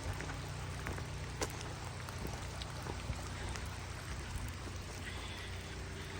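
Steady rain and running floodwater, with scattered drops ticking close by.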